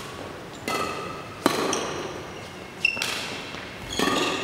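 Badminton rackets striking a shuttlecock back and forth in a rally: four sharp hits about a second apart, each with a brief ringing ping. The hits echo in a large hall.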